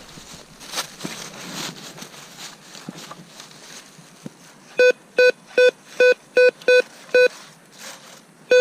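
Metal detector sounding off over a buried metal target: a quick run of about seven short, identical pitched beeps starting about halfway through, after a few seconds of soft rustling as the coil is swept over the ground.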